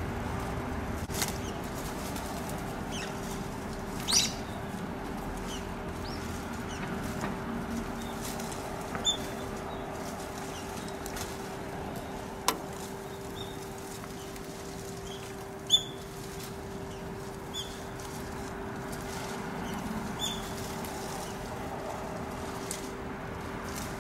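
Brown-eared bulbuls feeding in a berry-laden shrub: short, sharp high calls and brief flutters and rustles among the leaves every few seconds.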